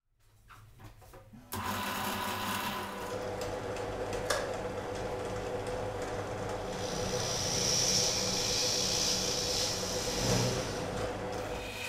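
Bench drill press motor running steadily, with a single sharp click a few seconds in; from about seven seconds in a hiss builds as the bit cuts into a thin plywood sheet.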